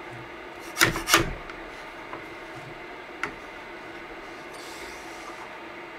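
Two sharp clicks about a second in and a fainter one later, as fingers work PLA prints free of the Anycubic i3 Mega's cooled Ultrabase glass bed. The powered-on printer hums steadily underneath.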